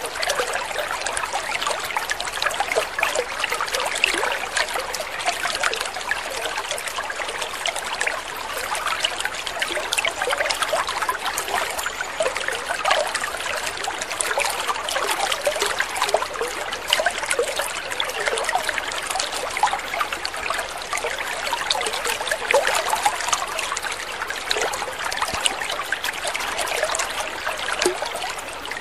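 Water trickling steadily, a continuous patter of small splashes.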